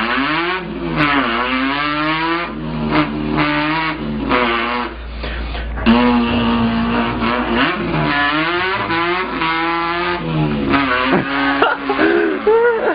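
A person imitating a revving car engine with his mouth: the pitch climbs and drops back again and again like gear changes, with one steady held note about six seconds in.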